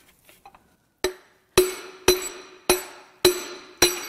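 Hammer blows on a drift driving a seized piston out of a rust-locked Chevrolet 454 big-block: six ringing metallic strikes about half a second apart, starting about a second in. The piston is now moving in its bore.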